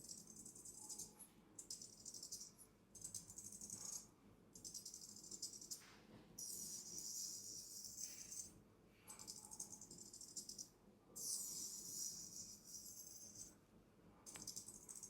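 Straight-razor strokes of a traditional Chinese 'jumping three blades' (跳三刀) shave: a run of faint, crisp, high scraping sounds, each lasting one to two seconds, with short pauses between.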